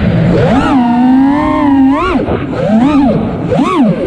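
FPV freestyle quadcopter's brushless motors and propellers whining, heard from its onboard camera. The pitch rises and falls with the throttle: a long climb about half a second in, then shorter dips and surges around two, three and nearly four seconds in.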